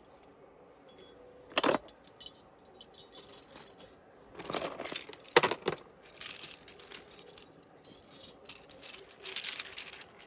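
Small metal puzzles jangling and clinking as they are picked up and handled, in irregular bursts with a few sharp clicks.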